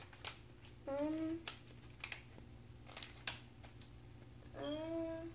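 A plastic blind-bag packet holding a Lego minifigure being pulled and torn open by hand, with scattered sharp crinkles and clicks. A child gives two short hummed notes, about a second in and again near the end.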